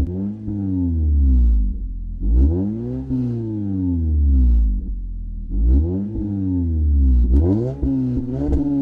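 Toyota Camry XSE's 2.5-litre four-cylinder engine through a MagnaFlow Street Series cat-back exhaust with tuned chamber resonators, free-revved in repeated blips, the pitch climbing sharply and falling back to idle each time.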